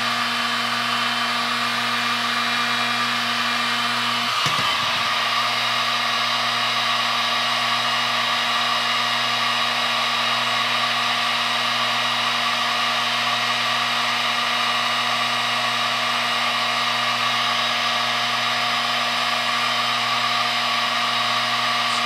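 Corded heat gun running steadily, its fan motor giving a constant whir with a high whine. It is blowing hot air to shrink heat-shrink tubing over wires. One of its lower tones drops away about four and a half seconds in.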